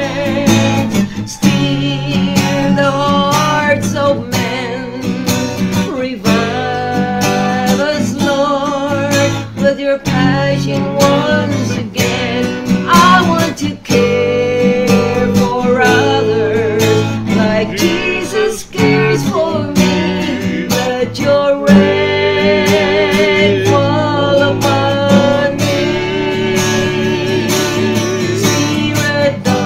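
A woman singing a slow song with a wavering vibrato while strumming an acoustic guitar.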